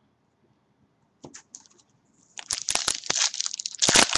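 Foil wrapper of a trading-card pack crinkling and tearing as the pack is opened. It starts about two seconds in and grows louder towards the end.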